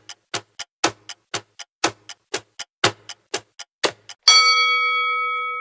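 Countdown-timer sound effect: clock ticking, about four ticks a second, then a little over four seconds in a single bright ding that rings on and slowly fades as the countdown runs out.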